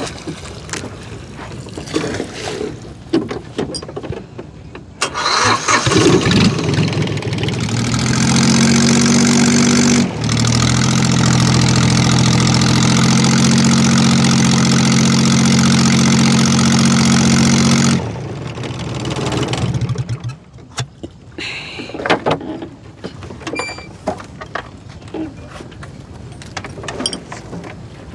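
Boat engine running loud at close range, coming in about five seconds in, holding a steady pitch with a short dip near ten seconds, then cutting off abruptly near eighteen seconds. Light knocks sound before and after it.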